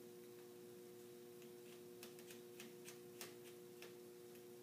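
Near silence with a steady hum, and a scatter of faint small clicks through the middle, the clearest just after three seconds in: a PVC pipe fitting being pressed down onto a plastic tube.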